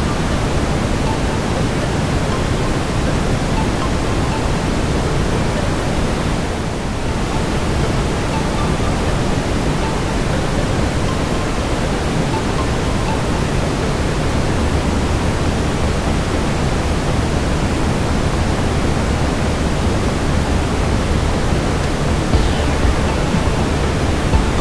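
Steady brown noise, a deep, even hiss weighted toward the low end, mixed with a fireplace ambience. It dips briefly about seven seconds in and has a few sharp peaks near the end.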